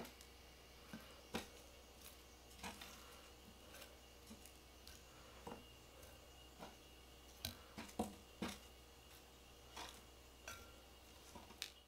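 Scattered light clicks and taps of wooden chopsticks picking up pieces of fried chicken and setting them on a ceramic plate, irregular and a few seconds apart, with a quick cluster of taps about eight seconds in, over a faint steady hum.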